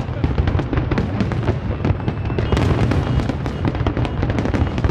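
Fireworks display: a rapid, continuous barrage of aerial shells bursting and crackling, many overlapping reports a second over a heavy low rumble of booms.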